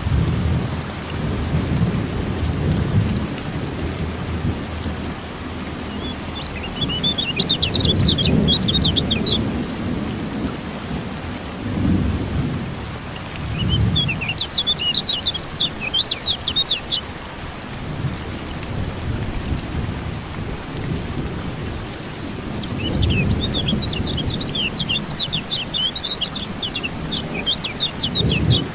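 Kecial kuning (yellow white-eye) singing in three bouts of rapid, high chirping notes, over steady rain with repeated low rumbles of thunder.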